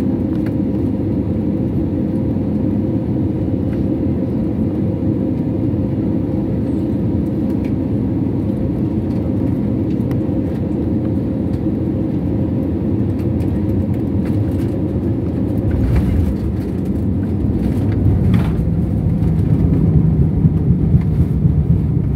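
Inside a twin-jet airliner's cabin, by the wing: a steady jet-engine hum on final approach, then a deeper rumble and a jolt as the wheels touch down about 16 seconds in. After that the engines grow louder toward the end as reverse thrust builds during the landing roll.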